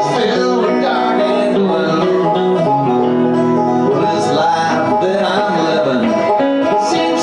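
Bluegrass duo of five-string banjo and electric guitar playing a song together.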